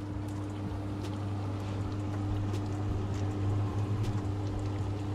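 Oliebollen dough balls frying in hot oil in an electric deep fryer: a steady sizzle with many small crackles and pops, over a constant low hum.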